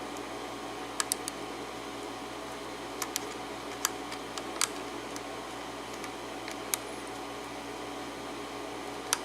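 Sparse, sharp clicks of a lock pick working the pin stacks of an Abus 72/40 padlock during single-pin picking, coming irregularly, a few in quick pairs, over a steady faint background hum.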